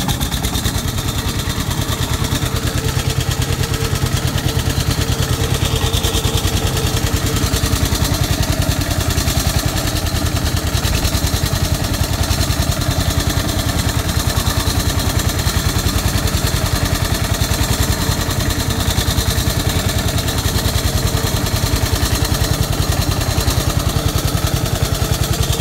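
Small engine of a wooden river boat running steadily at an even pace, pushing the boat along.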